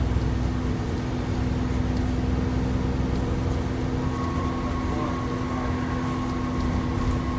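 Drivetrain of an ADL Enviro 400 double-decker bus, heard from inside the lower deck, running steadily at an even pitch with a whine. A higher whine tone joins in about four seconds in.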